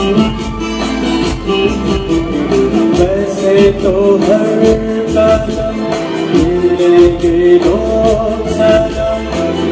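A song playing: a singer holding long, sliding notes over instruments and a steady beat.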